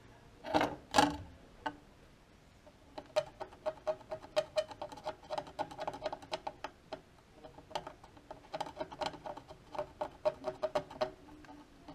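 Quick scraping strokes of a blade on a circuit board, several a second, each with a short chirp, scratching the insulating coating off a broken track in a Saab 9-3 window switch.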